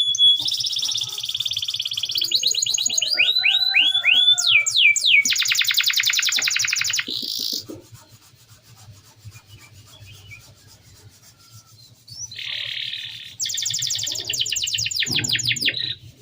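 Domestic canary singing a rolling song of fast trills and a run of downward-sweeping notes, ending the phrase in a rapid buzzy trill. It pauses for about four seconds, then starts another trilled phrase near the end.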